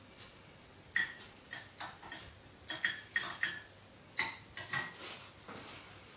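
Quiet, light metallic clicks and clinks, about a dozen at irregular spacing starting about a second in, from a dug-up metal button being handled in the fingers.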